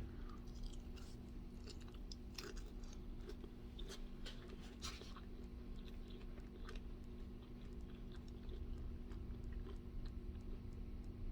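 A person chewing and biting a mouthful of grilled shrimp and avocado salad, with scattered small clicks and mouth sounds over a faint steady hum.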